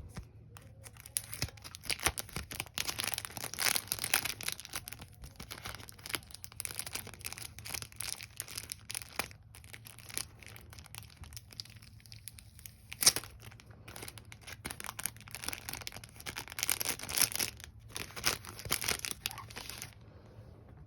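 Pokémon card packaging being torn open and crinkled by hand, in irregular crackly bursts with one sharp crack about 13 seconds in, falling quiet about a second before the end.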